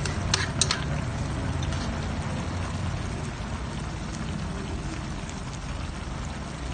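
Coconut-milk sauce with grilled tilapia bubbling at a simmer in a metal pan, nearly done. A couple of sharp clicks come about half a second in, over a low steady rumble.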